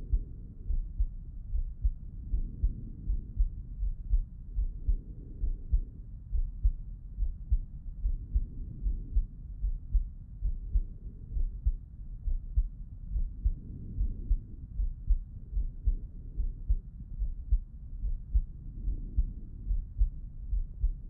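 A man's heartbeat heard through a Littmann stethoscope with him lying on his left side: regular, slow low thumps, with a soft rushing swell every five or six seconds.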